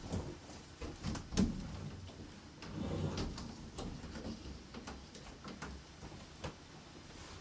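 Scattered light knocks and clicks of household handling, like drawers or doors being moved. The sharpest knock comes about a second and a half in, with a softer rustling shuffle around three seconds.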